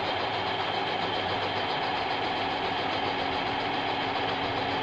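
1/14-scale RC Hino dump truck running with a steady, unchanging mechanical hum as its tipper bed rises.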